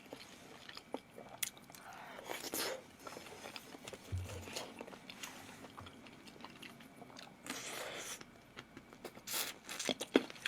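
A person eating close to the microphone: irregular biting and chewing with crunching, wet mouth sounds and small clicks, coming in bursts.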